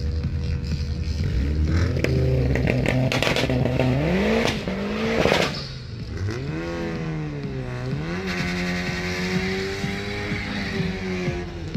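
Two drag-racing cars, a turbocharged four-cylinder Fiat Punto GT and a Lada, held at revs on the start line, then launching with a short burst of tyre noise about five seconds in. Their engine notes then rise and fall through the gear changes as they pull away.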